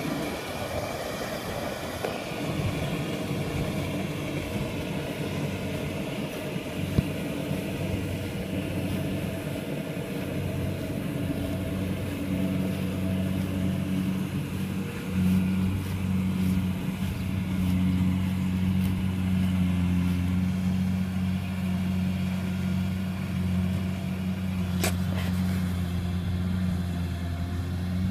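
Kubota rice combine harvester's engine running steadily, its hum growing stronger about halfway through, with one sharp click near the end.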